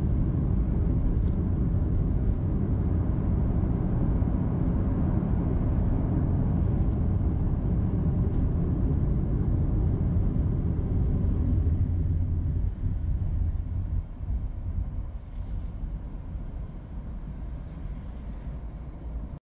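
Car driving, heard from inside the cabin: a steady low rumble of road and engine noise that becomes quieter about two-thirds of the way through.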